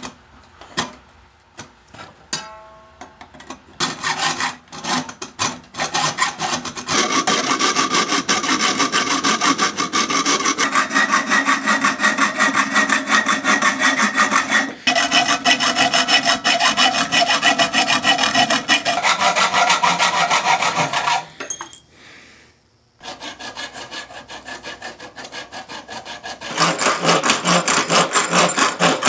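A hacksaw cutting through thin sheet steel in rapid back-and-forth strokes, and the steel rings under the blade. The sawing starts after a few seconds of scattered clicks and stops briefly about three-quarters of the way through.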